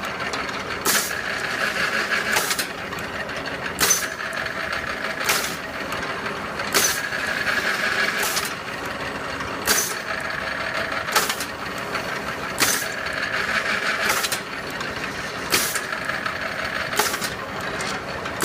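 Thread-cutting machine for wooden broom handles running steadily, with a short, sharp burst of noise repeating evenly about every one and a half seconds as it cycles through each handle.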